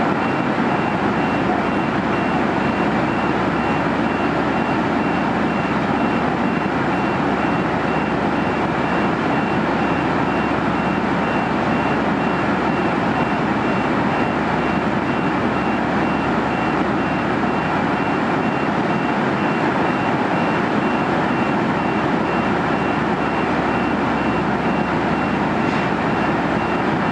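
Steady airliner cabin noise at cruise altitude, the even drone of engines and airflow, with a faint high beep repeating at even spacing throughout.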